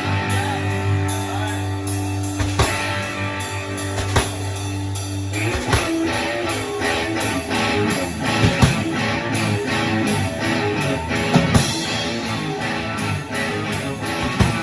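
Guitar jamming on a repeated chord progression with drums. Held, ringing chords give way about five and a half seconds in to busier playing with frequent drum hits.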